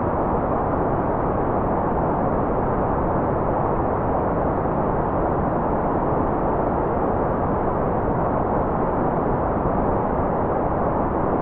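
A steady, unchanging white-noise track: a deep, even rush with no high hiss and no change in level.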